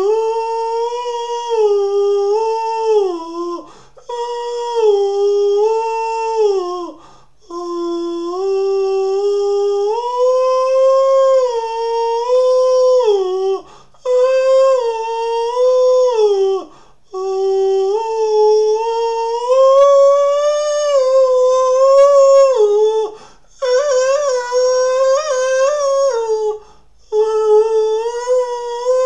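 A man's voice singing a wordless melody in a high voice, holding long notes that step up and down. The phrases last a few seconds each, with a short pause for breath between them.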